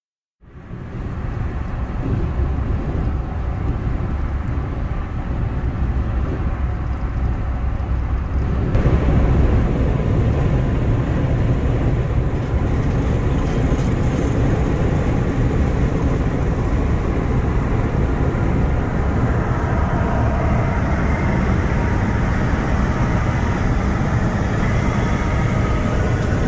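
Road noise at highway speed heard inside a moving car: a steady rumble of engine, tyres and wind, getting louder and brighter about nine seconds in.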